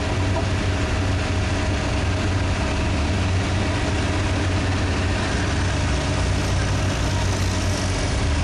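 Diesel farm tractor engines running steadily with a deep, even hum.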